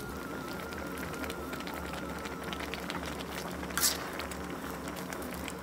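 Pot of bamboo-shoot curry bubbling steadily at the boil, with a brief hiss about four seconds in.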